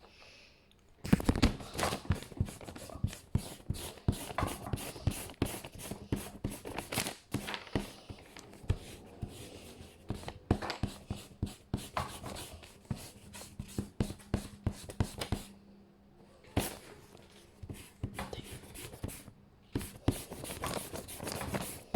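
A rubber eraser rubbing over paper in quick, irregular strokes, erasing pencil lines, with a couple of short pauses late on.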